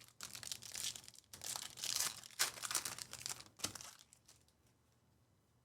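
A plastic trading-card pack wrapper being torn open and crinkled, a dense crackling that stops about four seconds in.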